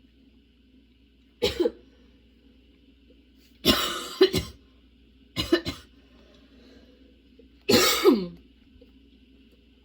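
A woman coughing in a prolonged coughing fit: four bouts of one or two coughs each, a second or two apart, the last ending in a falling vocal tail.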